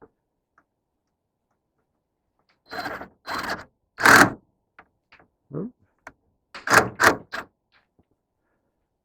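A series of short knocks and clatters, as of things being handled and set down, bunched in two groups with the loudest knock about four seconds in.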